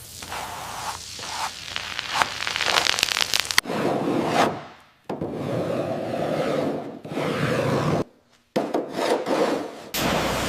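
Rubbing and scraping on the rusty car bodywork being repaired, in several short clips with abrupt cuts between them.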